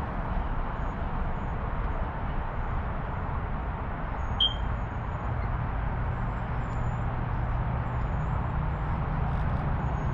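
Hair dryer blowing steadily, warming the emblem's double-sided adhesive tape. A brief high chirp sounds about four and a half seconds in.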